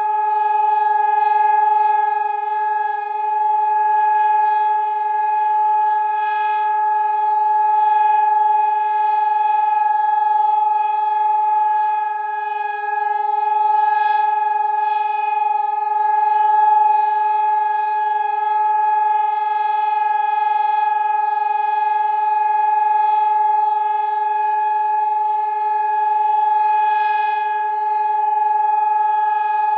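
Civil defence siren holding one steady, loud tone without rising or falling. This continuous note is the pattern Germany uses for the all-clear signal. Faintly, around twenty seconds in, a second distant siren can be heard winding up.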